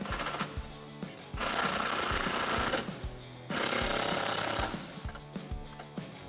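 Milwaukee FUEL cordless impact wrench running in bursts as it drives side step bracket bolts home: a short burst ending just after the start, then two longer ones of about a second and a half each. Background music plays underneath.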